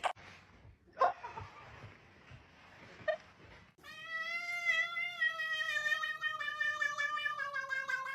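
A cat giving one long, drawn-out yowl that starts about halfway through, wavering slightly and sagging a little in pitch. A few sharp knocks come before it.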